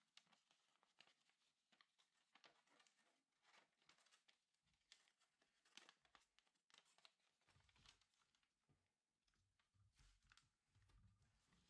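Faint rustling and crinkling of a strip of origami paper being folded and creased by hand, a run of short scratchy sounds. In the last few seconds there are soft low bumps as the paper is pressed flat against the table.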